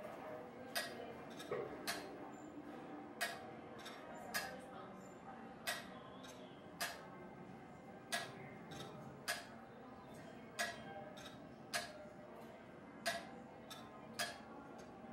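Escapement of a weight-driven tower-clock movement ticking steadily: a sharp metallic tick about every 1.2 seconds, with softer ticks in between.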